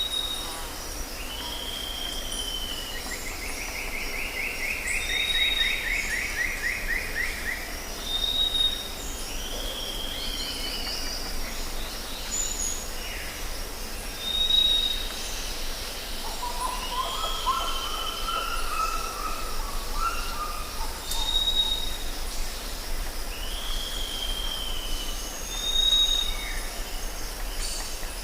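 Jungle ambience: several birds calling over a steady high insect drone. One bird repeats a short high note every few seconds, others give down-slurred whistles and a fast trill, and a lower warbling phrase comes about two-thirds of the way through.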